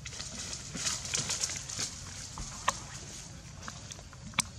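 Dry leaves and twigs rustling and crackling, with a few sharp snaps, the loudest near the end.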